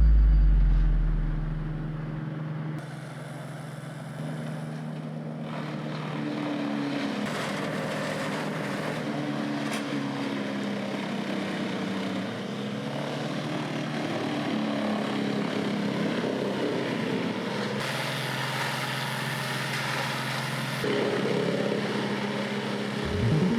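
Wood chipper running, its engine humming steadily under a broad rushing noise of branches being shredded.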